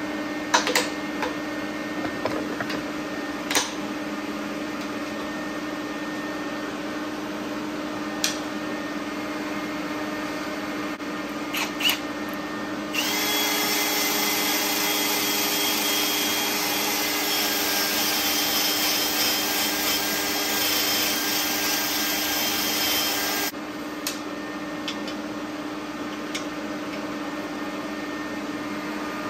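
Cordless drill running steadily for about ten seconds against a cast aluminium oil pan, starting and stopping abruptly. Before and after it, a steady shop hum with a few sharp clicks and light knocks.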